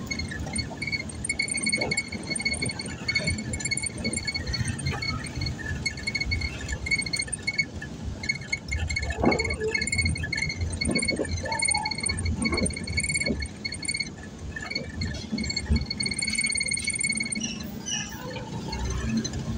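Low engine and road rumble inside a moving car's cabin, with a rapid, even run of short high-pitched chirps or beeps repeating over it that pauses briefly midway and stops shortly before the end.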